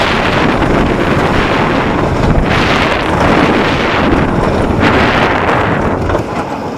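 Wind rushing over the microphone and the wooden roller coaster train rumbling along its track at speed. The noise eases off near the end as the train slows.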